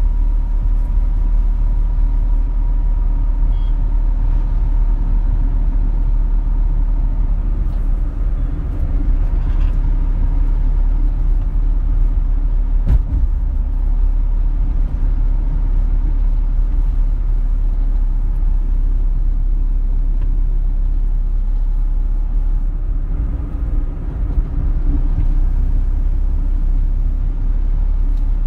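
Steady low rumble, with a single sharp click about thirteen seconds in.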